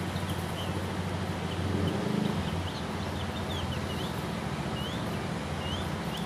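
Steady low background hum, swelling briefly about two seconds in, with a few short faint bird chirps.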